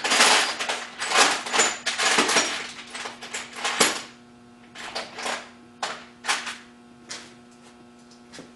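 Loose small metal hardware clattering and clinking as it is handled and rummaged through, busy and continuous for the first four seconds, then a few separate clicks. A faint steady hum runs underneath.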